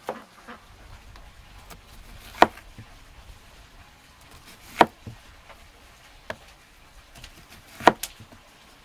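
A broad-bladed kitchen knife slicing a whole onion into rings and knocking down onto a wooden cutting board. Three loud, sharp strikes land about two and a half seconds apart, with softer taps between them.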